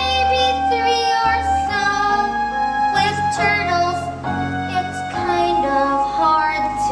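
Children singing a song with instrumental accompaniment, the voices holding long sustained notes over a steady bass line.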